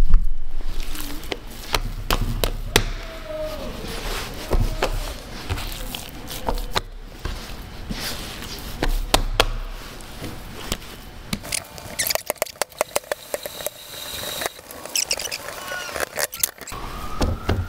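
Pizza dough being kneaded by hand on a marble board: irregular thuds and slaps as it is pressed, folded and dropped, with a quick run of small slaps about two-thirds of the way through.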